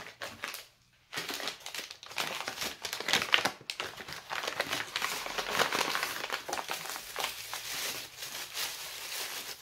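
Packing wrap being crinkled and rustled by hand as a wrapped item is unpacked. After a short pause it starts about a second in, as an irregular crackle that goes on for the rest of the stretch.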